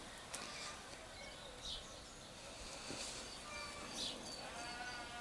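Faint birdsong: short, high chirps and whistles scattered throughout, with a brief call with several overtones near the end.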